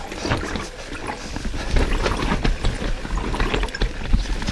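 Mountain bike rattling down a rough, rocky trail: a continuous clatter of tyres and bike over rocks and roots, with many irregular knocks.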